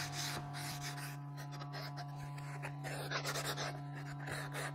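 Hand sandpaper rubbed in short, irregular strokes over the edges of a freshly routed juice groove in an oak board, smoothing edges that are sharp from the router. A steady low hum runs underneath.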